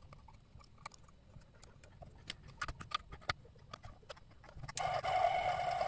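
Light clicks and taps of small metal parts being handled on a mini-lathe, then near the end a small electric motor sets up a steady whine for about a second.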